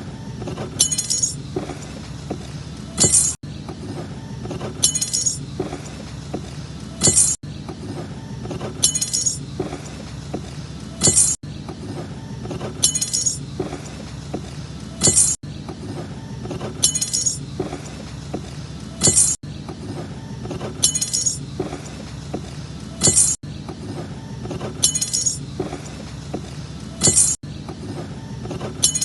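A folding knife dropped and bouncing on a hard surface: short metallic clattering bursts, two about two seconds apart, the same pair repeating every four seconds with a brief gap at each repeat.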